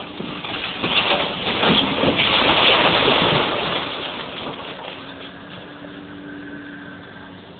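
A section of brick wall collapsing, a crash of falling masonry and rubble that swells about a second in and dies away after about three seconds. The diesel engine of the Liebherr 944 long-reach demolition excavator hums steadily underneath and is left running alone near the end.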